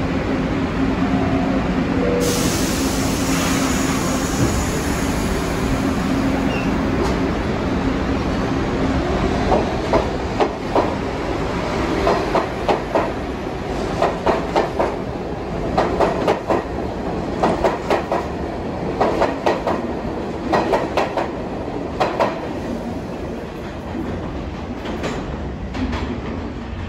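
New York City subway train running with a steady rumble. About a third of the way in, its wheels start clicking over rail joints in regular paired clicks, which thin out near the end.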